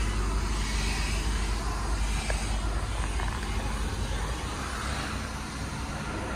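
Outdoor background noise with a low rumble of wind on the microphone, easing a little about two-thirds of the way in.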